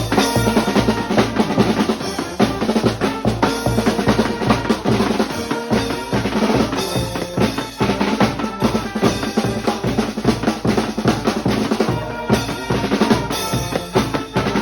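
A live street band playing, with bass drum and snare drum beating a steady, driving rhythm and held horn notes sounding over the drums.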